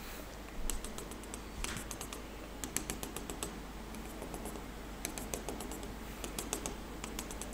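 A pen tip tapping and stroking on a touchscreen board, giving an irregular run of light clicks as short dashes are drawn one after another.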